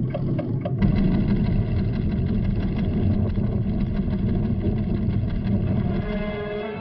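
Regular ticking stops about a second in, and a loud, deep, steady rumble sets in: a cartoon sound effect for the volcano's tremors, with held orchestral chords over it.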